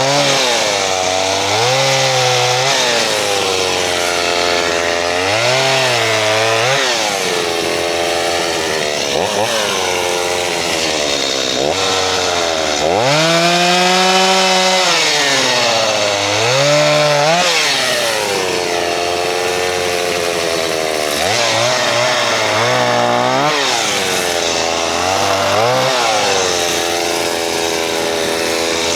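Gas chainsaw cutting wood, its engine revving up and dropping back again and again as the throttle is worked and the chain bites. One longer, higher rev comes about halfway through.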